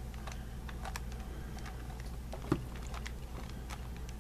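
Scattered light clicks and taps of hands handling a small vintage doll, over a steady low hum, with one louder knock a little past halfway.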